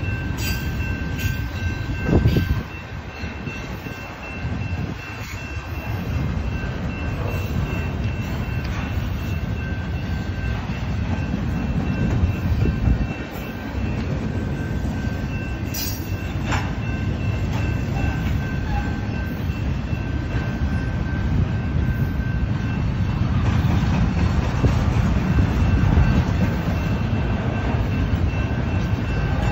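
A BNSF double-stack intermodal train's container well cars roll past close by, with a continuous rumble of steel wheels on the rails. A faint steady high whine runs under it, and there is a brief loud bump about two seconds in.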